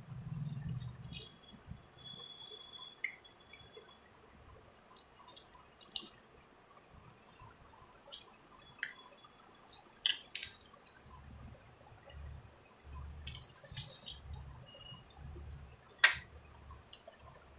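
Cat eating dry kibble from a stainless steel bowl: irregular crunches and sharp clicks of kibble against the metal, the loudest about 16 seconds in, with a dull low rumble at times.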